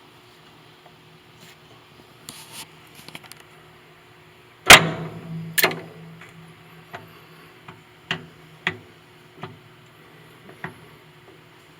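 Slide hammer pulling on the shaft of a LeBlond RKL-1960V lathe's speed gear selector, working a pressed-on bearing loose: one hard metallic clank with a short ring about five seconds in, a second strike under a second later, then several lighter clicks.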